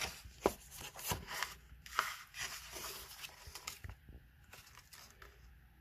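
Pages of a paperback book being turned and handled: paper rustling with a few sharp flicks, dying away after about four seconds.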